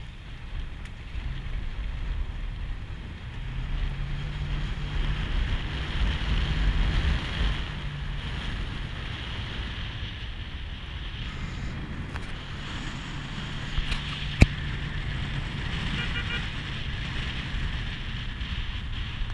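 SUV driving slowly over a dirt forest road: a steady engine drone under tyre and road noise, with wind buffeting a microphone mounted outside the vehicle. A single sharp click about fourteen seconds in is the loudest sound.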